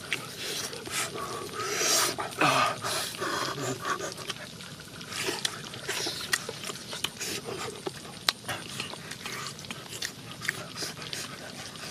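Two people eating with their fingers close to the microphone: wet chewing, lip-smacking and sucking noises in many short clicks, with a louder, longer mouth noise about two seconds in.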